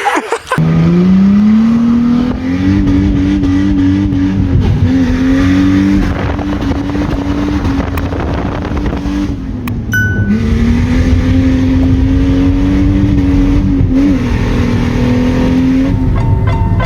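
Car engine revving up sharply, then held at high, steady revs for several seconds at a time, with brief dips in pitch before it climbs again.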